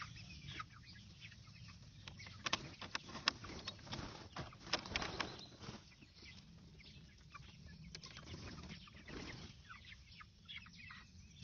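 Young chickens clucking in scattered short, soft calls as they leave the coop.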